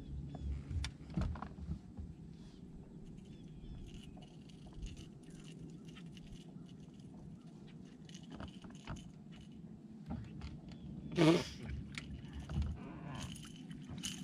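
Light clicks, taps and rattling scrapes from handling a freshly caught bass and the fishing lure on a boat deck, over a faint steady low hum. A short loud burst about eleven seconds in.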